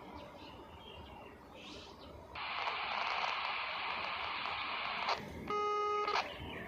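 Radio receiver tuned to the railway channel: a burst of static hiss a little over two seconds in that cuts off sharply after under three seconds, then a short steady beep near the end, like the tone that closes a transmission.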